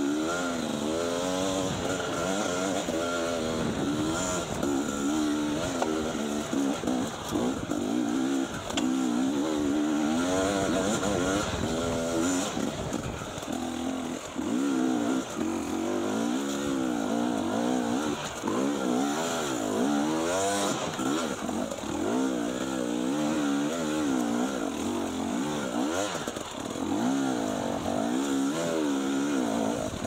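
Enduro dirt bike engine revving up and down constantly under the rider's throttle as it picks its way over rocky trail, the pitch rising and falling every second or so. A few sharp knocks sound along the way.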